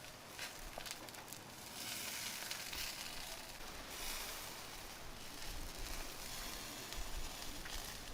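Food frying in a pan: a steady sizzle with a few sharp pops, swelling about two seconds in.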